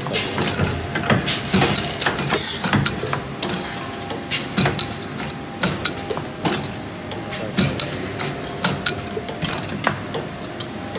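Automatic LED bulb glue-dispensing machine running: its rotary indexing table and actuators give a busy run of irregular mechanical clicks and clacks, with a short hiss about two seconds in.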